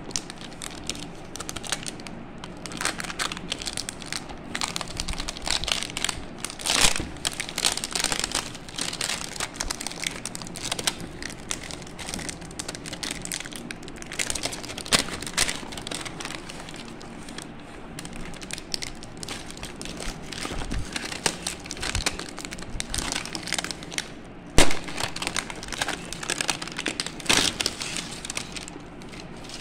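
Clear plastic shrink-wrap crinkling and crackling in irregular bursts as hands peel it off a cardboard box, with one sharp, louder crackle about three-quarters of the way through.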